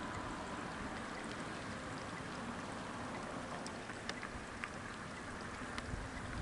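Steady outdoor background hiss, with a few faint ticks scattered through it.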